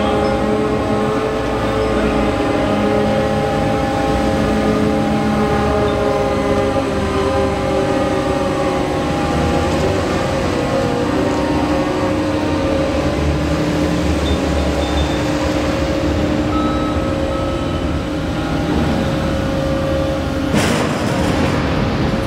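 Ship's cargo crane machinery running with a steady hum of several tones that shift in pitch partway through as the load frame is worked into the hold. A single sharp metal clank near the end.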